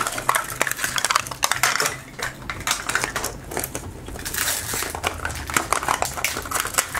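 Hands opening a Zuru 5 Surprise Mini Brands capsule: its plastic wrapper crinkles and the hard plastic ball clicks and taps as it is handled. The sound is a dense run of quick, irregular crackles with short rustling patches.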